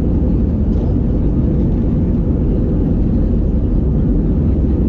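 Cabin noise of an Airbus A320-214 rolling on the ground: its CFM56 engines running and the undercarriage rumbling, heard from a window seat over the wing. A loud, steady, deep rumble.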